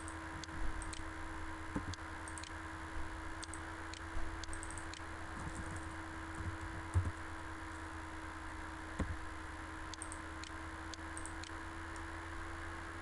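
Scattered faint clicks of a computer mouse and keyboard, irregular and a second or more apart, over a steady low electrical hum and hiss.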